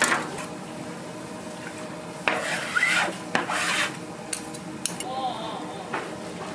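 Rasping, scraping strokes of a utensil against a work surface during fish cake bar preparation, loudest between about two and four seconds in, with a few sharp clicks and knocks.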